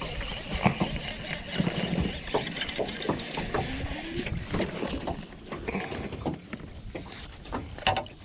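Small fishing boat on a lake: irregular knocks and clicks of gear against the boat over a steady low rush of wind and water, a little quieter in the second half.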